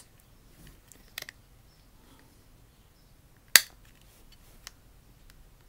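OtterBox holster belt clip snapping into its locked position: a couple of faint plastic clicks about a second in, then one sharp, loud click about three and a half seconds in, and a small tick shortly after.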